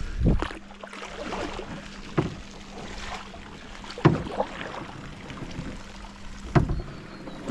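Canoe on the water: four sharp paddle strokes and knocks against the hull, roughly every two seconds, over lapping water. A steady low hum runs underneath.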